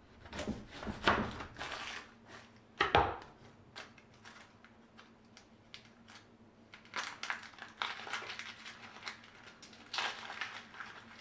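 An onion being peeled by knife and fingers on a wooden cutting board: the dry papery skin crackles and rustles, with knife clicks and taps on the board. A sharper knock comes just under three seconds in.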